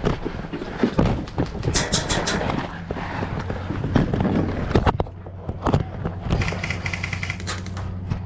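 Footsteps and gear rustling on a dirt airsoft field, with irregular knocks and crackles. About six seconds in come rapid, evenly spaced ticks from airsoft guns firing bursts.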